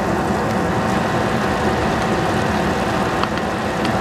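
A steady droning hum with a constant whine running under it, and faint scattered crackles from vegetables cooking in a stainless steel pot on a gas stove.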